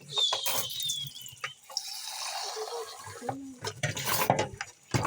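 Kitchen tap running into a sink while dishes are washed by hand, with clinks and knocks of dishes and a brief high squeak near the start.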